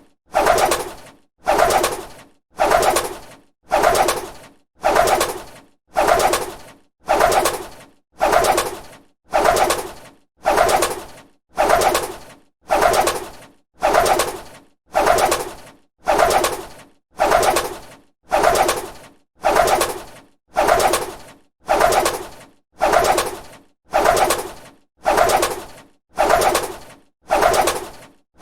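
A bird's wings flapping: a short flurry of wingbeats that starts loud and fades within a second, repeated at an even pace of about one a second.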